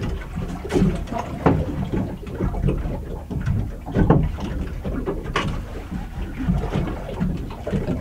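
Sounds aboard a small fishing boat on open water: a steady low rumble of wind and water, broken by a few sharp knocks.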